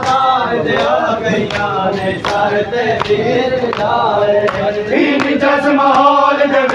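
Men chanting a Punjabi mourning lament (noha) together, with sharp chest-beating slaps (matam) keeping time at about one every three-quarters of a second. A new sung line begins about five seconds in.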